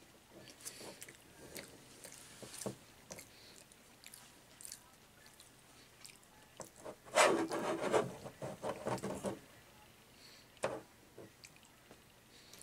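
Paper napkins rustling and crinkling as they are pulled from a napkin holder and pulled apart, in short scattered rustles, with a louder burst of crinkling about seven seconds in lasting around two seconds.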